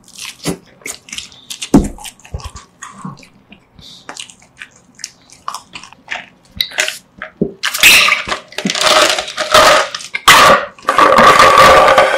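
Close-up eating sounds: biting and chewing roast chicken, with scattered wet mouth clicks and crunches. From about 8 s in, louder rough drinking sounds as a drink is tipped from a clear plastic cup and slurped.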